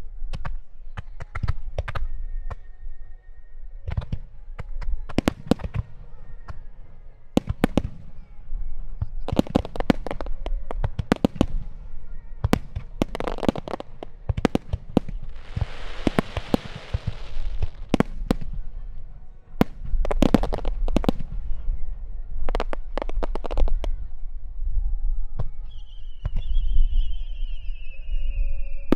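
Aerial fireworks shells bursting in quick succession, many sharp booms with a low rumble under them. About halfway through comes a dense hissing crackle lasting a couple of seconds, and near the end a high whistle slides down in pitch.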